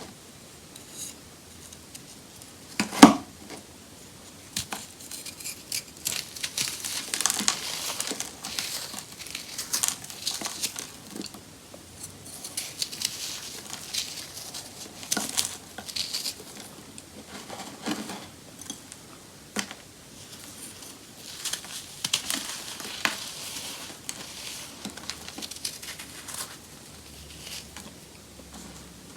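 Compressed baking soda being crumbled, crunching and crackling in repeated bursts, with one sharp loud snap about three seconds in.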